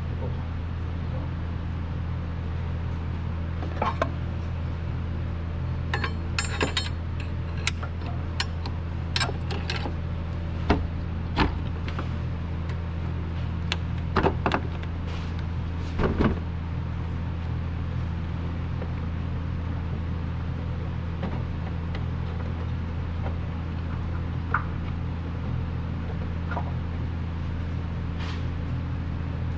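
Metal hand tools and parts clinking and knocking during work in a car's engine bay: scattered sharp clinks, bunched in the first half with a couple more near the end, over a steady low hum.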